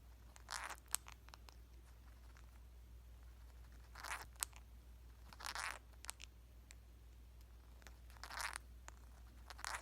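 Indian ringneck parrot grinding its beak: five short, faint rasping scrapes a second or two apart, with small clicks between them. Beak grinding is typical of a content, relaxed parrot.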